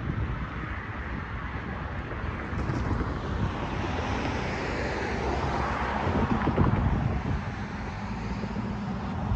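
Wind buffeting the microphone over the hiss of road traffic, with a car passing close by about six seconds in.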